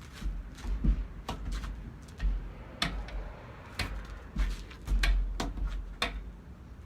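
Hands and forearms slapping and striking during a Wing Chun/JKD hand set: an irregular run of about a dozen sharp slaps, with low thuds under some of them.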